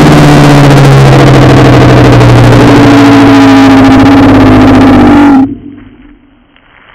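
An extremely loud, distorted, sustained roar with one steady pitch that sinks slightly. It drops away about five and a half seconds in, leaving only a faint low rumble.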